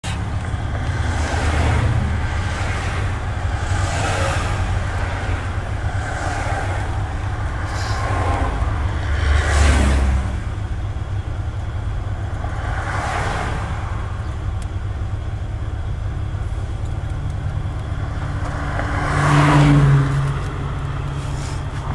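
Car engine and road noise heard from inside the cabin while driving: a steady low hum with swells of louder noise every few seconds, the biggest about halfway through and near the end.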